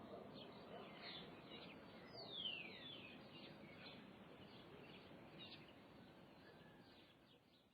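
Many small birds chirping and twittering in open countryside over a steady background hiss, with one clear downward-sliding whistle about two seconds in. The sound fades out near the end.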